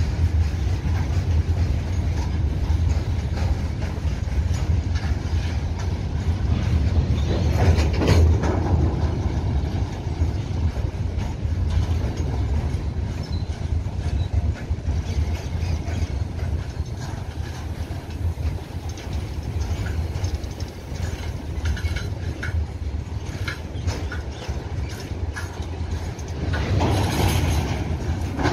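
Indian Railways covered goods wagons rolling past close by: a steady low rumble of the bogies with a constant run of clicks as the wheels cross rail joints. Two brief louder swells, about eight seconds in and just before the end.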